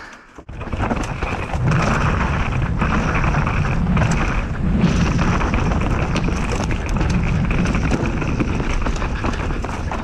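Mountain bike ridden downhill on a dirt trail: a steady rushing noise of wind and tyres, with the bike rattling over the ground, building up about half a second in.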